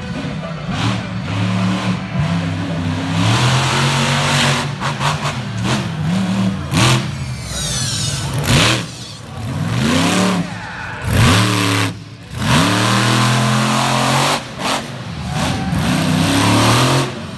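Monster truck engine revving hard. The throttle is repeatedly chopped and opened again, so the engine note drops out suddenly and climbs back up several times.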